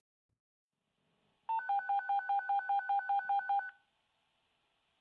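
Electronic two-tone beeping like a telephone dialling tone, about six beeps a second for some two seconds, starting about a second and a half in and stopping suddenly: an emergency-call alert.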